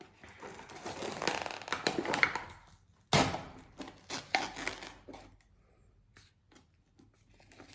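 Crinkling and tearing of a Pringles tube's foil seal being pulled open, then a sudden sharp crunch about three seconds in and a few smaller crackles as a crisp is bitten and chewed, fading to faint clicks.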